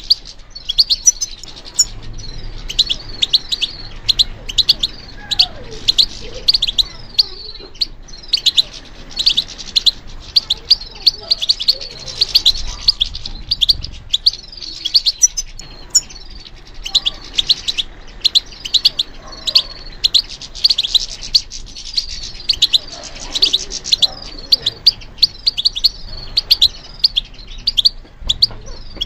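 European goldfinch singing: a long, fast twittering song of rapid high notes that runs on with only a couple of brief pauses.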